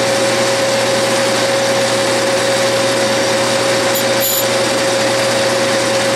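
Metal lathe running steadily with a constant whine, its tool taking a light finishing cut on an aluminium bar. About four seconds in, faint brief scratches as a caliper is slipped over the spinning work to feel the diameter.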